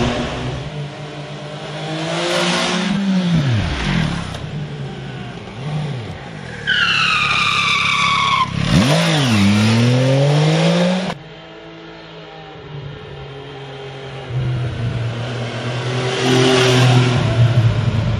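MV Agusta Rivale 800's three-cylinder engine heard in a string of cut-together riding clips: revving and passing by, the pitch falling as it goes past. A high-revving pass falls away about seven seconds in, and the revs dip and climb again around nine seconds in.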